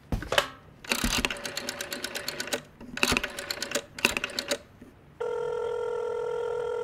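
Telephone sound effect: a click as the handset is picked up, then a rotary dial turned and whirring back three times in rapid clicks. Near the end comes a steady ringing tone in the earpiece that stops abruptly.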